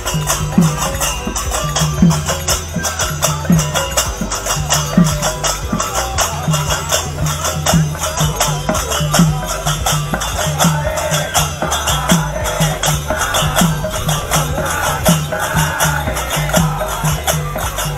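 A group singing a devotional kirtan chant to rapidly struck small brass hand cymbals (kartals), with low drumbeats about twice a second.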